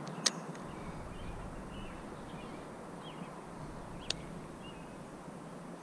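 Outdoor ambience: faint birds chirping over a steady background hiss, with two sharp clicks, one just after the start and one about four seconds in.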